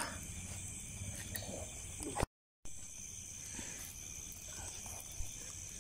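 Crickets chirring steadily at several high pitches over a low background hum; everything cuts out completely for a moment a little over two seconds in.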